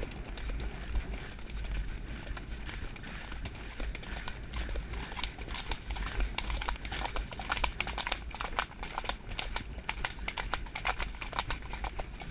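Hoofbeats of a ridden pony and a horse just ahead moving briskly along a dirt track, a fast, dense patter of hoof strikes that grows louder about a third of the way in. A steady low rumble runs underneath.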